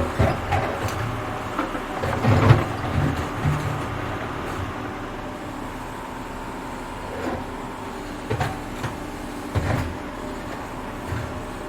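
Excavating machine's engine running steadily, with irregular heavy clanks and thumps of the digging gear, the loudest about two and a half seconds in and another cluster near the end.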